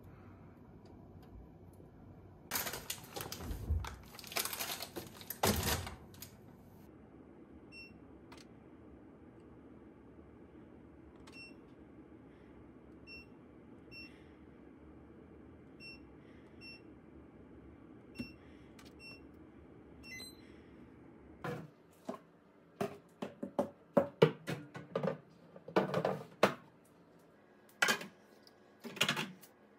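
Samsung refrigerator control-panel buttons beeping, about a dozen short high beeps, as a compartment's mode is switched. A few seconds of rustling handling noise come first, and a run of sharp clicks and knocks near the end is louder than the beeps.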